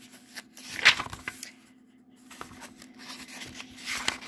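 Pages of a paperback picture book being handled and turned: paper rustling and flapping in short bursts, loudest about a second in and again near the end.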